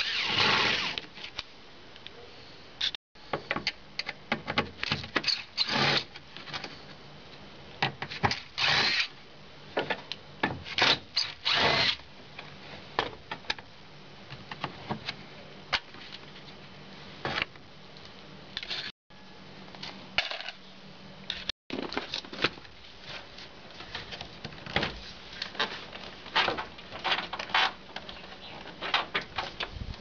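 Plastic door trim panel of an Isuzu pickup's passenger door being pried and pulled off with a thin metal tool: a run of clicks, knocks and plastic scraping, with several louder rasping scrapes lasting about a second each.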